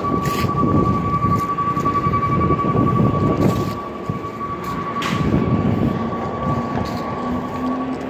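Rear-loader garbage truck driving away, its engine a low uneven rumble with a steady high-pitched whine. Near the end a low engine note rises slowly as another vehicle speeds up.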